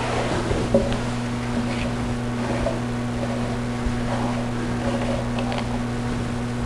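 Light metal clinks and scraping as a steel block and the loose remnant of a disintegrated bolt are handled in a bench vise, over a steady low electrical hum. A sharp, ringing metal knock comes right at the end.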